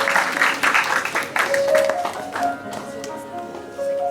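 Audience applause dying away over instrumental background music; the clapping thins out about halfway through, leaving a simple melody of sustained notes.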